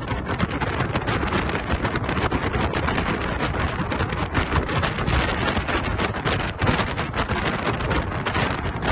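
Wind buffeting the microphone of a camera filmed from a moving vehicle, mixed with road noise: a loud, uneven rushing.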